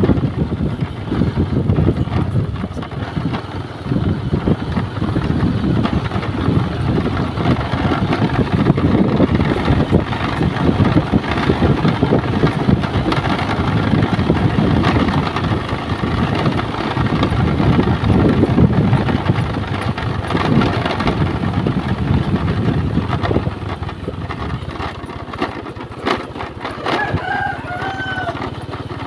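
Steady engine rumble and wind noise from a vehicle moving along the road. Near the end a rooster crows once.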